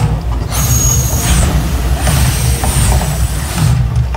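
Mirage volcano attraction erupting: a loud, deep rumble with hissing whooshes from its gas fire bursts and water plumes that come and go.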